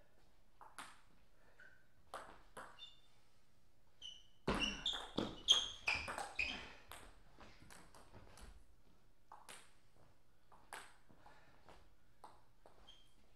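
Table tennis ball clicking off the table and the players' rubber bats. A few lone bounces come first, then a fast rally of rapid sharp ticks starts about four seconds in and lasts around three seconds, followed by a few more lone bounces.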